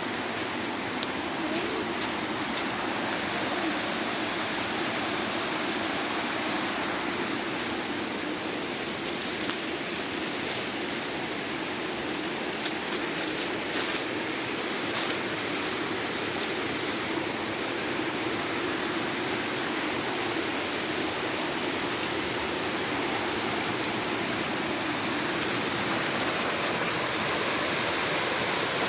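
River water rushing steadily over rocks, an even unbroken noise, with a few faint clicks.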